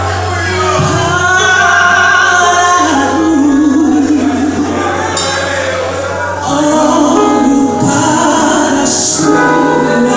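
Gospel worship song performed live: male and female voices singing long held notes over instrumental backing with a steady bass.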